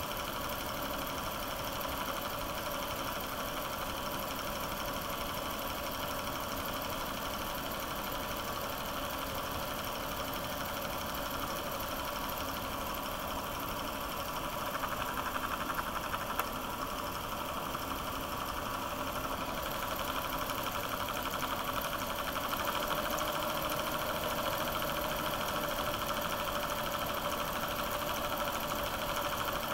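9.5mm cine projector running with a steady motor whirr and film-gate clatter, slightly louder in the second half.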